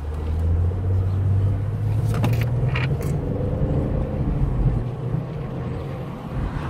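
Car engine and road noise heard from inside the cabin while driving, the engine note rising a little over the first couple of seconds and then holding steady. A couple of short clicks come around the middle.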